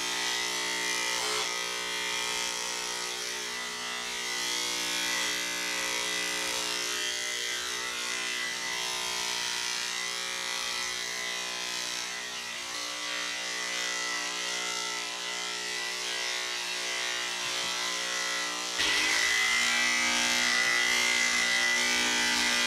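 Corded electric dog grooming clipper running with a steady hum as it shaves a dog's coat. About 19 seconds in it grows louder and its pitch dips briefly.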